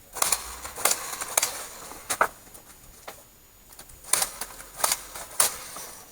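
Sharp knocks and clicks in two groups, about four in the first two seconds and three more later on, with a rustling hiss between them.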